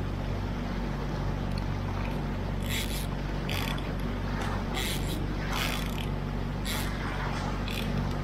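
Small boat's outboard motor running steadily under way, with irregular splashes and slaps of water against the hull.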